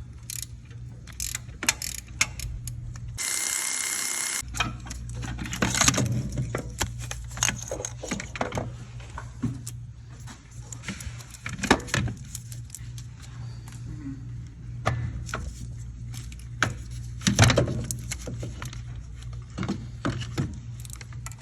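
Hand tools working on metal in a car's engine bay: scattered clicks, clanks and ratcheting over a steady low hum, with a hiss lasting about a second some three seconds in.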